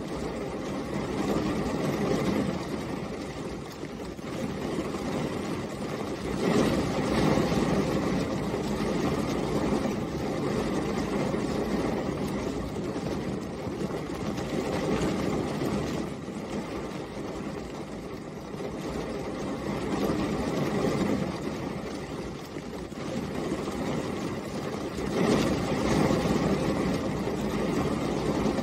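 Steady rainfall, a dense low patter that swells louder and eases off in slow waves, about a third of the way in and again near the end.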